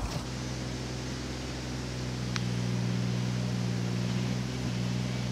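A steady low engine hum that grows a little louder about two seconds in, with a single light click partway through.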